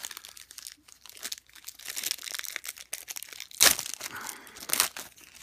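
Plastic wrapper of a 1988 Score baseball card pack being torn open by hand, crinkling and crackling, with two sharp louder rips about two-thirds of the way in and near the end.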